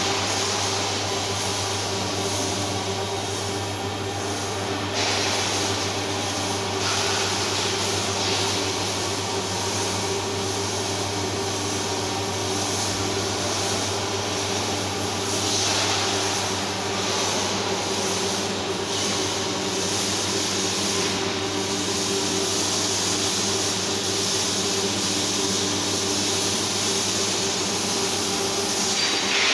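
Steady industrial machinery noise in a welding hall: a constant low hum with a few steady tones underneath a hiss that grows louder for a few seconds at a time, near the start, around five seconds in and again around sixteen seconds in.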